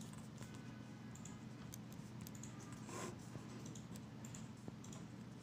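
Pen writing figures on paper: faint scratches and light taps of the tip, with a brief scratchy stroke about three seconds in, over a low steady hum.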